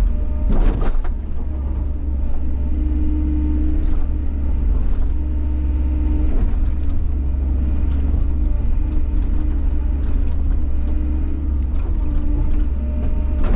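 A motor vehicle running with a steady, loud low rumble, a faint steady hum above it, and a few scattered clicks.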